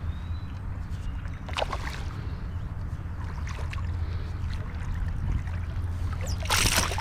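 A hooked fish splashing at the surface beside a kayak, with water sloshing against the hull over a steady low rumble; the splashing is loudest near the end.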